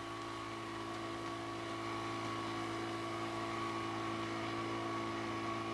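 A steady engine drone at a constant pitch.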